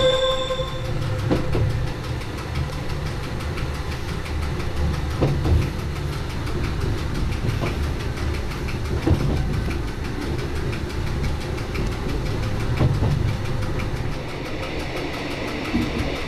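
Running sound of a metre-gauge Rhaetian Railway electric motor coach heard from its cab: a steady low rumble from the running gear, with occasional sharp clicks of the wheels over the rails. A steady whine stops about a second in, and near the end the sound grows brighter and hissier as the train runs into a tunnel.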